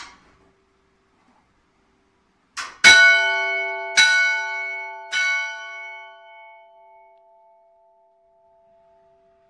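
Small bronze church bell struck three times about a second apart, with a light touch just before the first stroke. Each stroke rings out and fades, and the bell's low hum tone lingers after the last.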